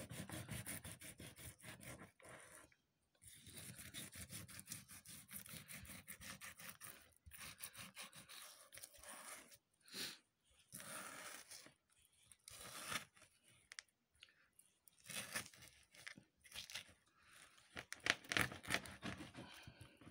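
Kitchen knife slicing along a sea bass to cut off a fillet, giving a run of small crunching, scraping clicks broken by a few short pauses.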